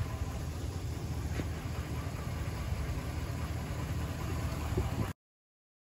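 Ram 1500 pickup's engine idling with a steady low rumble; about five seconds in the sound cuts off abruptly to complete silence.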